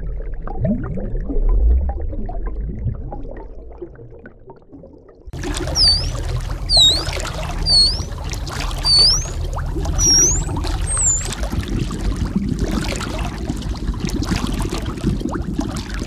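Underwater water noise: a low bubbling rumble fades away over the first few seconds. About five seconds in it cuts to a steady underwater rush with dolphin whistles, about seven short calls that dip and rise in pitch.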